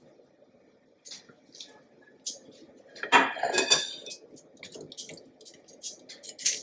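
Metal kitchen tongs clinking and scraping against a glass mixing bowl while sauce-coated chicken wings are lifted out, with a cluster of louder, ringing clinks about three seconds in.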